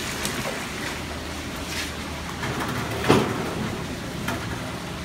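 Steady rumble of a working commercial kitchen, with gas burners alight, and a single sharp knock about three seconds in.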